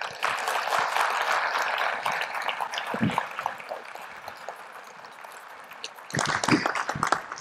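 Audience applauding, the clapping slowly dying away over about six seconds. Near the end come a few short knocks and handling noises.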